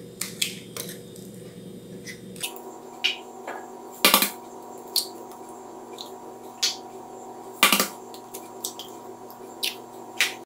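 Eggs tapped and cracked one at a time on the rim of a plastic mixing bowl: a series of sharp taps and shell cracks, the two loudest about four and eight seconds in, with small clicks between. A steady hum comes in about two and a half seconds in.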